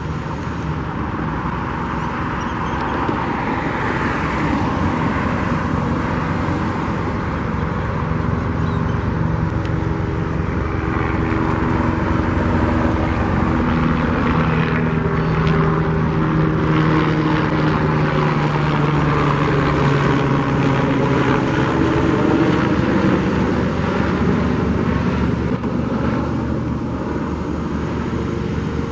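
Steady outdoor traffic noise, with the drone of a passing engine whose pitch slowly falls through the middle.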